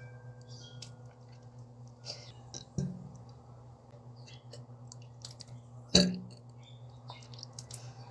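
A cat hiccupping: two short, sudden jolts about three seconds apart, the second louder, with small mouth clicks between them over a steady low hum.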